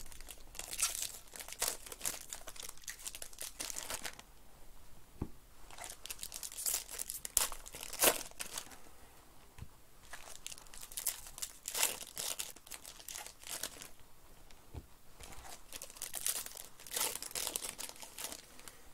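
Foil wrappers of Panini Prizm baseball card packs crinkling and tearing as they are ripped open, in irregular bursts with short lulls between.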